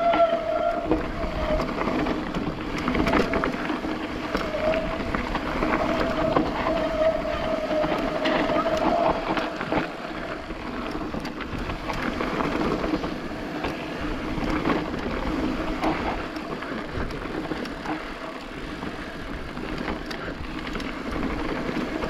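Mountain bike riding down a rough trail: continuous tyre and rattle noise with many small knocks, and a steady whine that fades out about halfway through.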